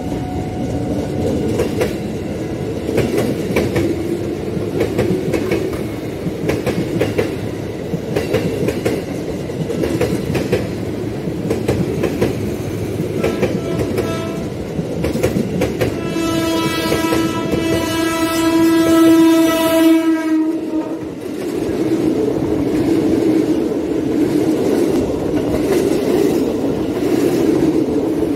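KRL JR 205 electric commuter train running close past, its wheels clacking steadily over the rail joints. About sixteen seconds in, a train horn sounds one long steady blast of about four seconds.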